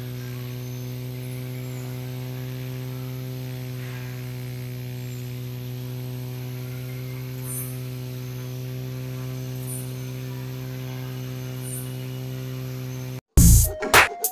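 Small DC motor and fan of a homemade bamboo mini air cooler running with a steady electric hum. The hum stops abruptly near the end and loud electronic music starts.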